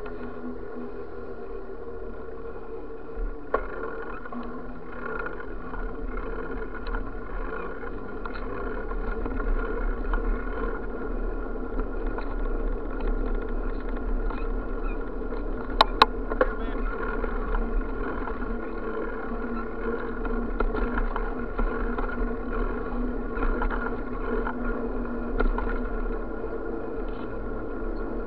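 Bicycle rolling along asphalt streets, heard from a camera mounted on the bike: steady tyre and riding noise with a low rumble. There is a sharp click about three and a half seconds in and a pair of sharp clicks around the middle.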